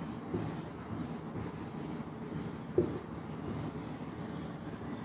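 Marker pen writing on a whiteboard: faint scratching strokes, with a short light tap near three seconds in.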